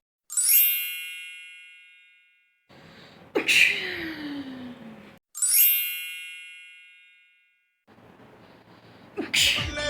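A bell-like chime rings and fades over about two seconds, then a person sneezes once, with a short burst and a falling voice. The same chime and a second sneeze follow, and music starts right at the end.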